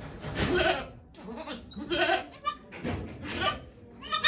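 Goats bleating: several short calls, about a second apart.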